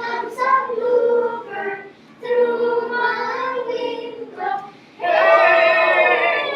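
A class of young children singing a song together with a woman's voice, unaccompanied, in short phrases. About five seconds in, a louder, fuller held note begins.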